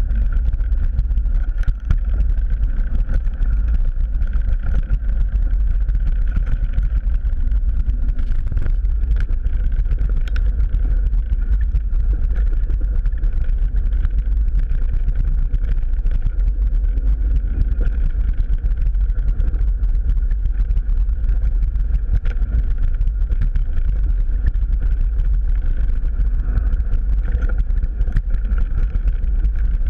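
Steady, heavy wind rumble on the microphone mixed with tyre noise as a mountain bike rides fast along a dirt singletrack.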